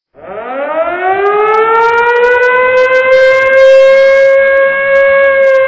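A siren winding up, its pitch rising over the first second and a half, then holding one steady, loud wail.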